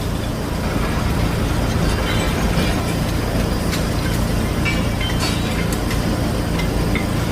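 Large machine engine running steadily with a low rumble, with faint scattered clicks and clinks over it.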